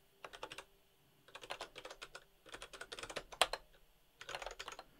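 Typing on a computer keyboard in short bursts of key clicks, with one louder keystroke about three and a half seconds in.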